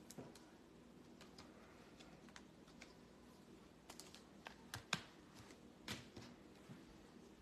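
Faint, scattered clicks and light taps, a handful of them at uneven intervals, the loudest about five seconds in and another just before six seconds.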